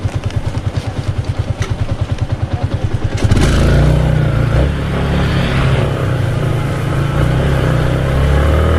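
Motorcycle engine idling with an even, rapid pulse, then accelerating about three seconds in and running louder and steadier.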